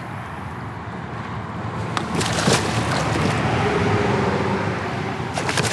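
Steady road noise from interstate traffic, swelling about midway as a vehicle passes with a faint tyre whine, with a few short clatters near the middle and at the end.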